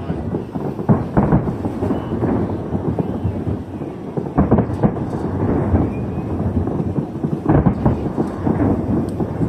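Aerial fireworks going off in rapid succession: continuous booming and crackling, with heavier blasts about one, four and a half, and seven and a half seconds in.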